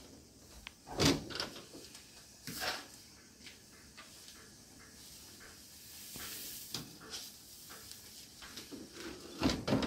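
Kitchen oven door pulled open with a clunk about a second in, then knocks and clinks of a foil baking tray being set on the wire oven rack, with another cluster of thumps near the end.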